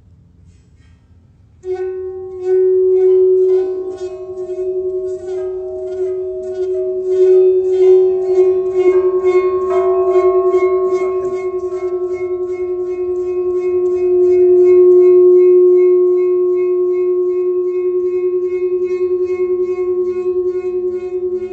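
A steady, sustained humming tone that starts suddenly about two seconds in, with several higher ringing tones layered over it and held to the end.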